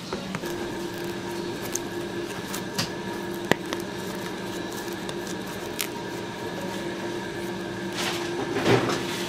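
Steady machine hum of bakery equipment, with a few sharp clicks and knocks and a burst of clattering near the end.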